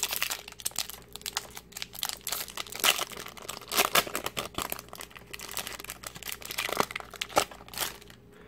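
Foil wrapper of a Pokémon XY Flashfire booster pack being torn open and crinkled as the cards are pulled out of it: a dense run of sharp crackles, loudest at a few moments.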